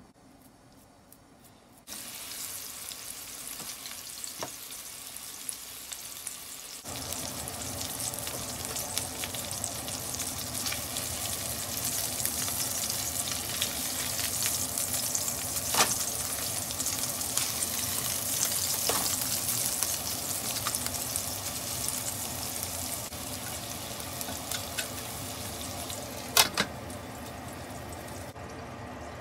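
Hamburg steak patties sizzling in hot oil in a nonstick frying pan. The sizzle starts about two seconds in and grows louder a few seconds later, with a few light clicks over it. Near the end there is a sharp knock, and then the sizzle turns duller under a glass lid.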